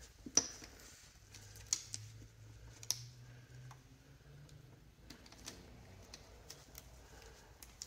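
Small plastic clicks and handling noise from gloved hands pulling apart the wire connectors inside a SNOO bassinet's base: a sharp click about half a second in, two more about a second apart after it, then lighter ticks.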